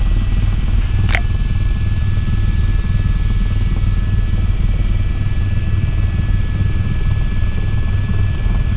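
Aircraft engine running steadily: a deep continuous drone with a thin steady high whine over it. A brief sharp click about a second in.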